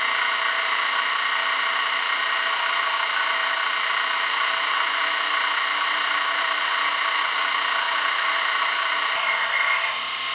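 200-ton hydraulic press running under load as its ram slowly presses a Graphalloy bushing into a metal housing: a steady machine whine made of many even tones. The sound changes and drops slightly near the end.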